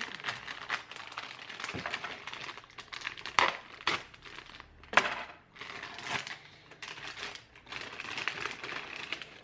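Plastic bag crinkling as it is pulled open and handled to get a cable out, with a few sharper crackles about three and a half and five seconds in.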